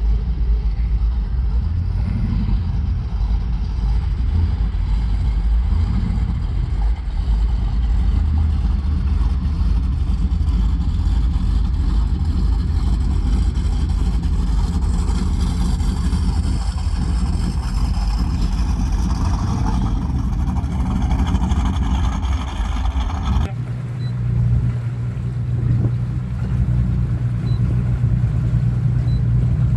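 Engines of performance catamaran powerboats running at low speed: a loud, deep, steady engine sound. After a sudden change about two-thirds of the way in, a steadier low engine drone with a held tone.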